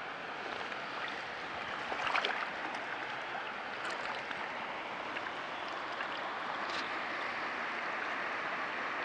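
Steady rush of flowing river water around a wading angler, with a few faint clicks, the loudest about two seconds in.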